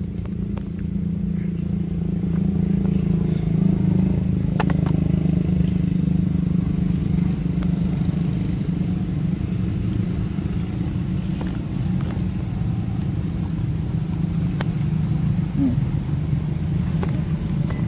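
An engine running steadily, a constant low drone that does not rise or fall, with a few faint clicks over it.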